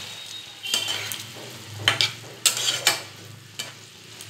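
A metal spatula scraping and knocking against a non-stick frying pan, about five strokes, as fried eggs are stirred into a thick, creamy korma gravy. The gravy simmers faintly underneath.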